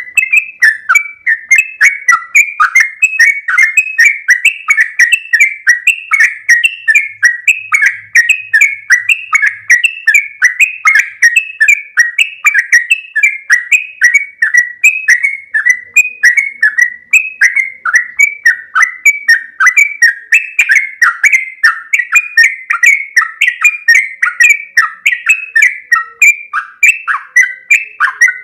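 Yellow-vented bulbul (trucukan) singing its long 'ropel' run: an unbroken stream of quick, bubbly notes, about three a second, each sweeping down in pitch.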